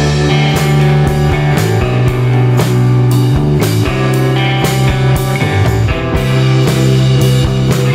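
Background rock music with guitar and drums, keeping a steady beat.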